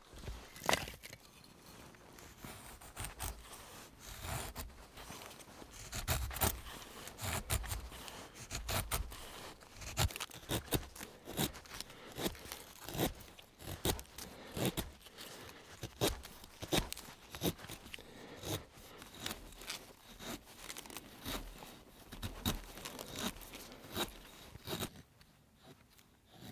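An axe blade shaving thin curls down a stick to make a feather stick: a run of short, irregular scraping and cracking strokes.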